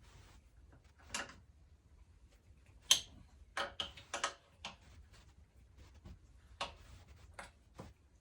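A series of sharp clicks and knocks, about a dozen, the loudest about three seconds in and a quick cluster just after. This is the left pedal being threaded onto the e-bike's crank arm and tightened with a tool.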